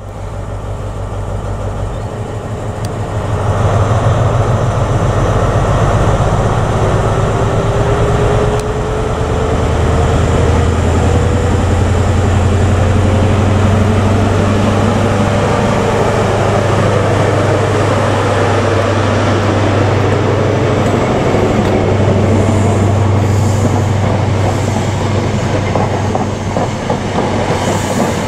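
A High Speed Train's Class 43 diesel power car runs by with a steady deep engine drone. About six seconds in, a whine rises in pitch and then fades, and the Mark 3 coaches follow with a rolling rumble of wheels on rail.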